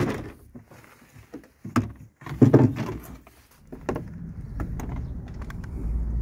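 A few sharp knocks and clunks, then from about four seconds in the steady low rumble of a pickup truck driving, heard from inside the cab.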